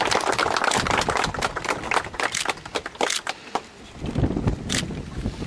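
Audience applauding, the clapping thinning out about three and a half seconds in.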